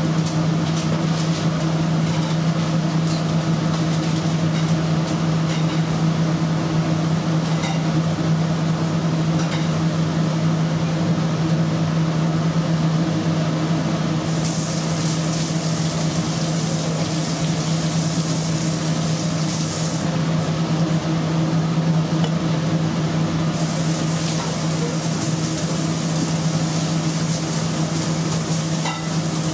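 Steady low hum of commercial kitchen machinery with a constant droning pitch. A higher hiss joins in about halfway through, stops, and comes back for the last few seconds. A few faint clicks sound in the first seconds.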